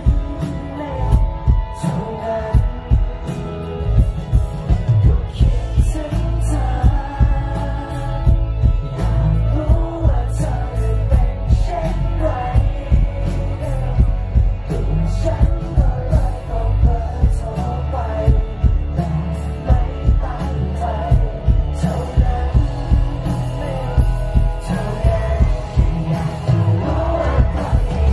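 Live rock-pop band playing, with a male lead singer singing in Thai over a steady drum beat, bass and guitars.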